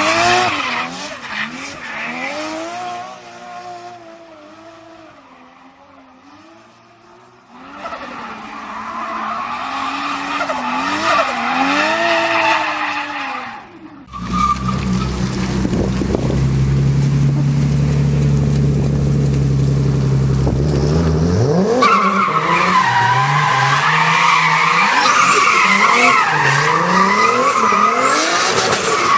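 Tuned turbocharged car engines from several clips. First an engine revs up and down and fades away, then another comes in revving. From about 14 s an engine is held at a steady speed, and from about 22 s it revs hard, its pitch rising and falling repeatedly, with a high whistle above it.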